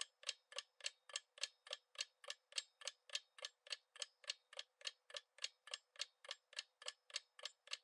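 Clock-ticking countdown sound effect: faint, even ticks at about three and a half a second, marking the quiz timer running down while the answer is awaited.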